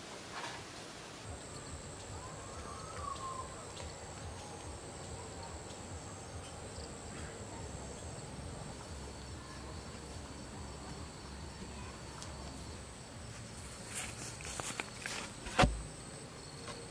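Rural outdoor ambience with a steady high insect buzz and a brief bird chirp about three seconds in. Near the end come a few knocks and a loud thud as a bamboo post is set into a hole dug in the soil.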